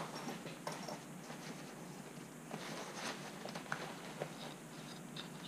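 Faint rustling of nylon straps with a few soft clicks as a plate carrier's side belt straps and buckles are fastened and adjusted.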